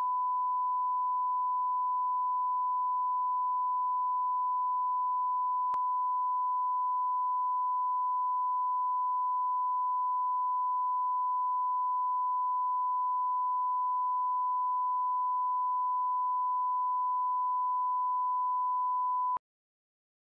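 Steady pure line-up test tone (the standard 1 kHz reference tone that goes with colour bars), held at one pitch, cutting off suddenly near the end.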